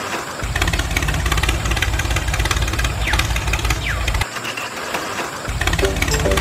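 A small motor running with a fast, even pulsing, which stops about four seconds in and starts again near the end.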